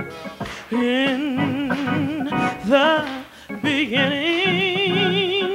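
A woman singing a gospel song solo into a microphone: wordless runs and long held notes with a wide, even vibrato. There is a short break about three seconds in, then one long wavering note.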